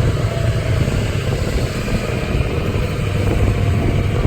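Tour tram's engine running steadily with a low hum and rumble.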